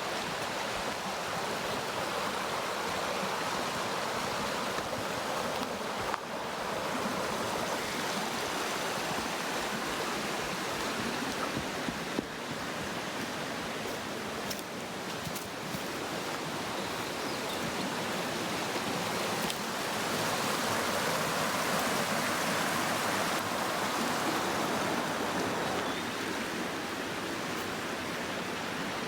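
Waterfall water pouring in a steady, unbroken rush, swelling a little about two-thirds of the way through.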